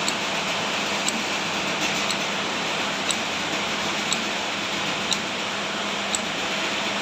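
Lanting moulding machine running with a steady mechanical whir and a sharp, regular click about once a second.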